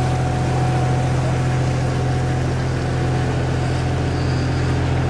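Tour boat's engine running steadily as the boat cruises along the canal, a constant low hum heard from on board.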